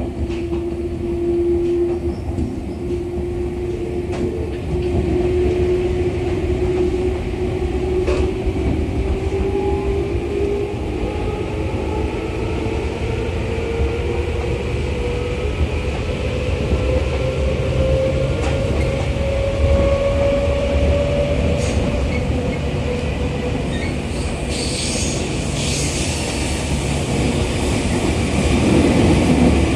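Running noise heard inside a 211 series electric train carriage: a steady rumble of wheels on rail under a single whine that rises slowly in pitch as the train gathers speed over about twenty seconds. The noise grows louder near the end as the train runs into a tunnel.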